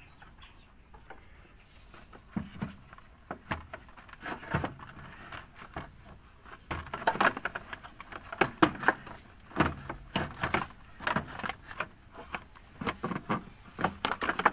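Irregular clicks, knocks and scrapes of a rigid plastic blower housing cover being handled and pushed into place, growing busier about halfway through.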